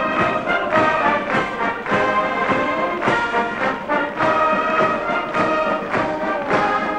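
Massed military brass band playing a march: brass chords over drums keeping a steady marching beat.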